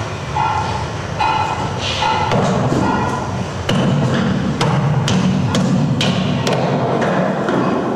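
Irregular knocks and thumps, more frequent in the second half, over music.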